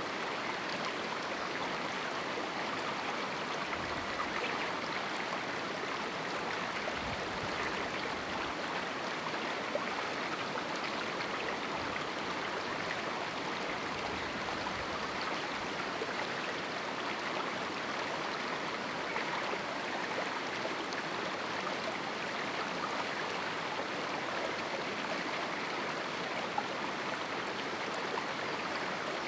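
A small river running through a rocky canyon: a steady, even rush and burble of flowing water, with faint low rumbles now and then.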